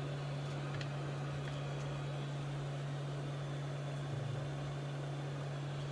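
Steady low electrical hum with an even fan-like hiss from running repair-bench equipment, with a couple of faint ticks.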